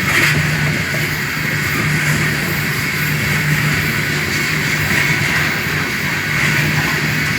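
Cars of a BNSF coal train rolling past: a steady, continuous rumble of steel wheels on the rails with a high ringing tone above it.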